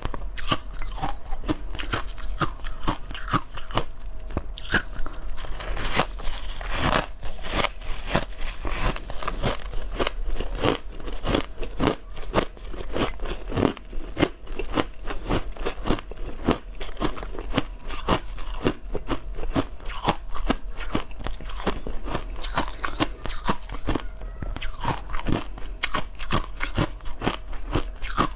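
Crushed ice being bitten and chewed close to the microphone: a rapid, continuous series of crisp crunches.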